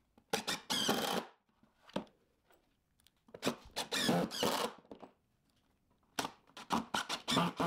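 Drill driving screws into wood, in four short runs with pauses between them.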